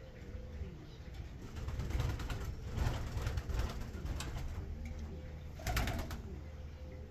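Doves cooing in low, repeated phrases, with scattered knocks and a louder brief scuffle or clatter about six seconds in.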